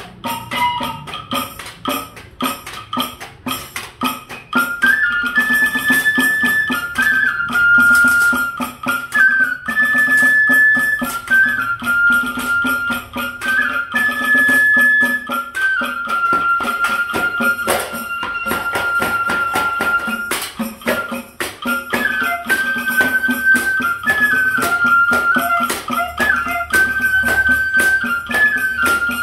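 Homemade bamboo flute playing a simple stepping melody of short held notes over rapid clicking percussion from a bamboo one-man-band rig. For the first few seconds only the clicking percussion is heard, and then the flute comes in.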